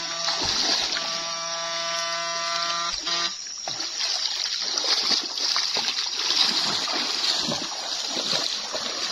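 A backpack electric fish stunner's inverter buzzes with a steady electrical hum, then cuts off about three seconds in. After that, water splashes and sloshes as the stream is waded and a dip net is swept through it.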